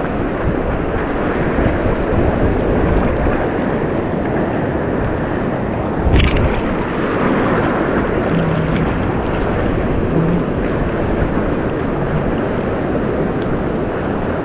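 Surf washing and breaking over a shallow reef at the water's edge, with wind buffeting the microphone. A brief thump about six seconds in.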